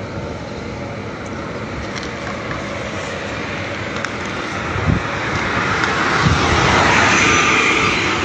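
Outdoor traffic noise with a vehicle passing close by, its rushing sound swelling to its loudest about seven seconds in and then easing off.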